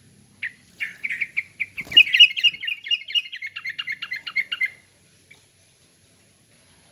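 Sooty-headed bulbul (kutilang) singing a quick, even run of chirped notes for about four seconds, then falling silent. A brief low knock sounds about two seconds in.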